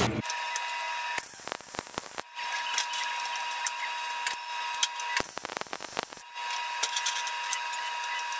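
Arc welding on 16-gauge cold-rolled steel sheet: a crackling hiss in three runs, about one second, three seconds and two seconds long, with short pauses and a few clicks between them.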